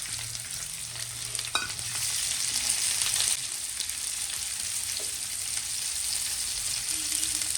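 Chopped onion with pounded chilli, timur, ginger and garlic sizzling in hot oil in a frying pan while being stirred. A single sharp tap comes about one and a half seconds in.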